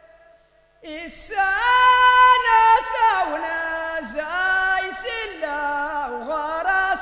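A voice singing a song in Tashelhit (Amazigh), drawn-out wavering notes with slides between pitches, starting after a short pause of under a second.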